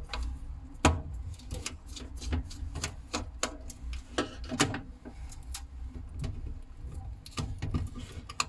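Irregular light clicks and taps of small hand tools working on a hard drive's metal casing, over a steady low hum.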